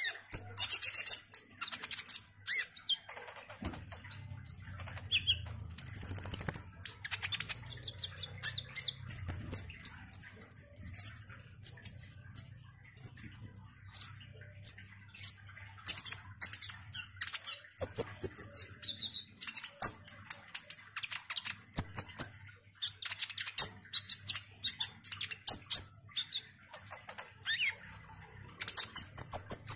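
Caged male kolibri ninja (purple-throated sunbird) singing: a fast, varied run of high chirps, trills and short whistles in quick bursts, with one higher drawn-out whistle about six seconds in.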